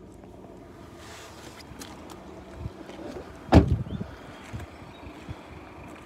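A car door being shut: one heavy thump about three and a half seconds in, with a few lighter knocks and handling rustle around it.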